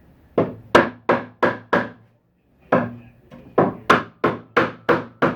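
Hammer blows on wood during cabinet assembly: five quick, evenly spaced strikes, a pause of about a second, then seven more.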